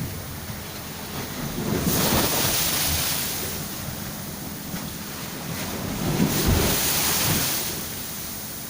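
Wind and surf noise, with wind rumbling on the microphone, swelling twice, about two seconds in and again about six seconds in.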